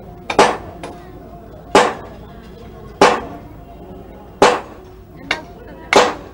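Hammer blows at a building site: five loud, sharp strikes about one and a half seconds apart, each ringing briefly, with lighter taps between them.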